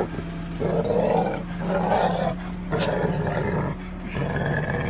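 Pit bull–type dog in a car's back seat making long, low vocal grumbles in several drawn-out stretches, refusing to come out of the car.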